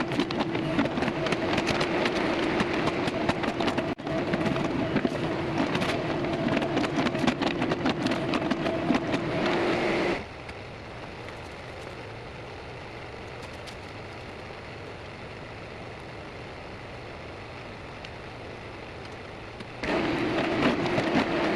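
Rural King RK37 compact diesel tractor running under load while digging, with scraping and clattering over a steady engine note. About ten seconds in it drops abruptly to a quieter steady hum, and the loud running returns near the end.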